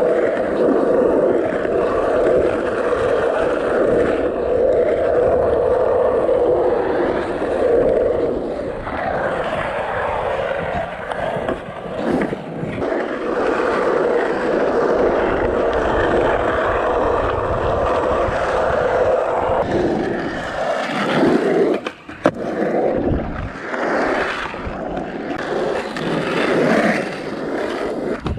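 Skateboard wheels rolling over a pump track's rollers and berms: a continuous rolling rumble that swells and eases as the rider pumps, with a brief dip about 22 seconds in.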